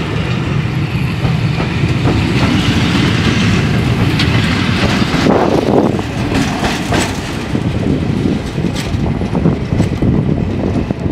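Passenger coaches rolling past at speed, their wheels clicking rhythmically over the rail joints with a steady rumble, then the tail-end Class 47 diesel locomotive going by about halfway through, the loudest moment, before the train draws away.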